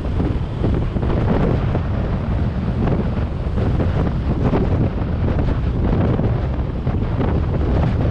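Steady wind buffeting on the microphone of a camera moving along a road, with engine and traffic noise underneath.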